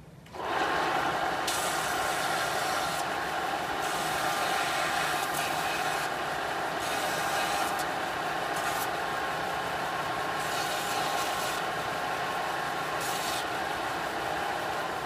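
Bench-mounted combination belt and disc sander switching on about half a second in and running with a steady whine. The top of a marimba mallet is pressed to the moving belt five or six times, each contact adding a gritty rasping hiss as it is sanded flush and its edge broken.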